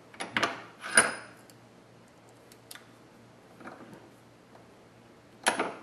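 Sharp metallic clinks from a bench vise being worked to press a steel inflator needle into a set screw: a quick cluster in the first second, the loudest about a second in with a short ring, a few faint ones in the middle, and another loud clink near the end.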